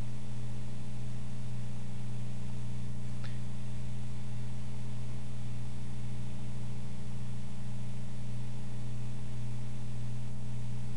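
Steady low electrical hum with a faint hiss, unchanging throughout, with one faint tick about three seconds in.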